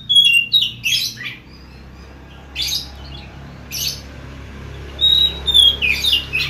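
Caged oriental magpie-robin (kacer) singing loudly: a quick run of whistled, sliding notes at the start, two short scratchy notes in the middle, and another whistled run near the end.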